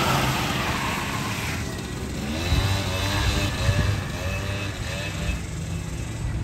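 Suzuki LT80 mini ATV's two-stroke engine being ridden around. It fades at first as it moves off, then revs up and down several times in a row.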